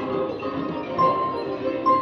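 Fruit machine electronic music: several steady notes sounding together, with a louder, higher beep about a second in and again near the end.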